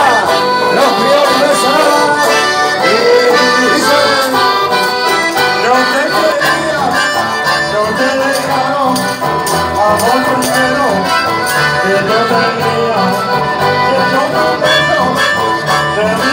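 Live band music led by accordions, with guitars strumming and a steady beat beneath, played without a break.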